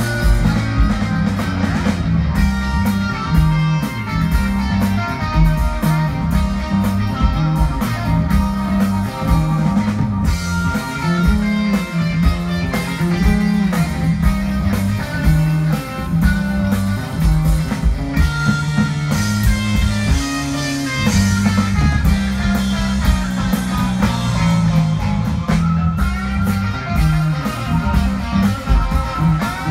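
A live rock band playing through an outdoor PA: electric guitar over a drum kit and a moving bass line.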